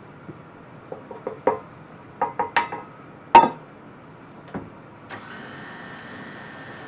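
Several sharp knocks and taps with a short ring, a spatula striking the rim of a mixing bowl while the sides are scraped down, the loudest about three and a half seconds in. About five seconds in an electric mixer is switched on and runs steadily, beating the cookie dough.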